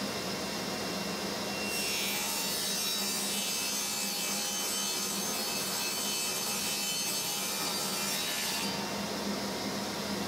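Mini table saw running steadily while a hardwood stile is fed along the fence, cutting a groove in its edge. The cutting noise comes in over the motor's hum about two seconds in and drops away near the end, when the piece clears the blade.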